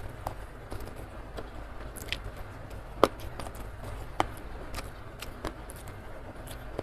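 Close-miked eating with the hands: scattered wet mouth clicks and chewing, plus fingers picking at rice and side dishes, with two sharper clicks about three and four seconds in. A steady low rumble runs underneath.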